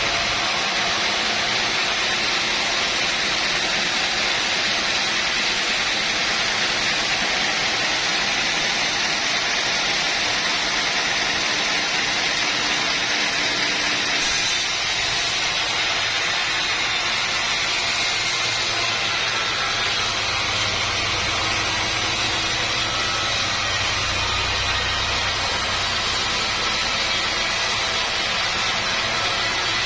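Sawmill saw and machinery running steadily while a long teak log is sawn: a continuous dense noise. The sound changes abruptly about halfway through, and a low engine hum joins in during the second half.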